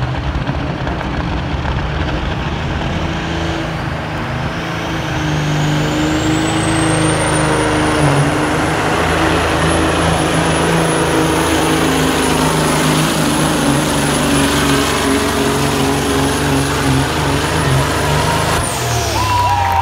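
Caterpillar diesel of a cabover Freightliner pulling semi running hard under load as it drags the pulling sled down the track. A high whine climbs over the first several seconds, holds, and falls away near the end.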